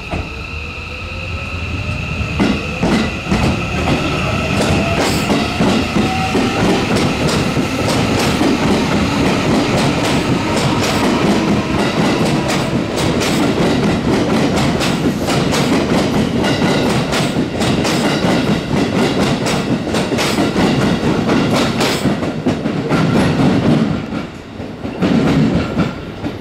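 JR 207 series electric train departing: its traction motors whine, rising in pitch over the first several seconds as it accelerates. The cars then roll past with a fast clickety-clack of wheels over rail joints over a steady rumble, dipping briefly near the end.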